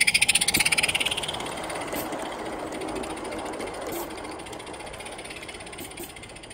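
Live-steam garden-scale Forney locomotive, butane-fired, chuffing fast and hissing as it passes, fading over the first second and a half. Its small cars then roll over the track with a light clatter and a few clicks.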